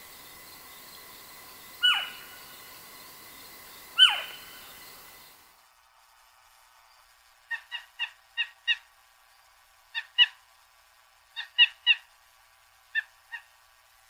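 Eastern screech owl calling: two sharp cries that fall steeply in pitch, about two and four seconds in, over a steady hiss that drops away. Then a series of short clipped notes in quick groups of two to five.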